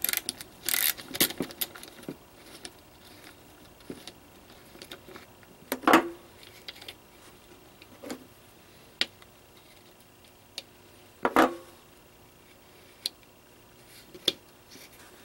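Scattered metallic clicks and clinks from handling an ATV pull-start recoil assembly as it is put back together, beginning with a socket tool on the reel's center bolt. Two louder knocks come about six and eleven seconds in.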